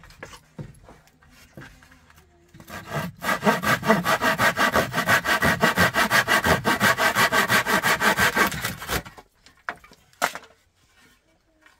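Hand saw cutting through an old weathered wooden plank in fast, even back-and-forth strokes. The sawing starts about three seconds in and stops about a second before a single sharp knock.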